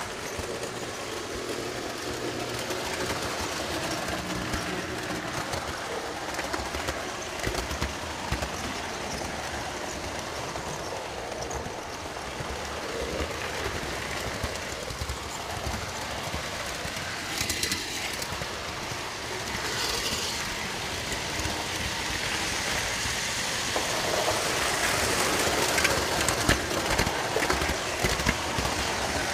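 Model electric train running steadily on three-rail track, heard close up from a camera riding on the train. The wheels and motor make a continuous running noise that gets louder in the last few seconds.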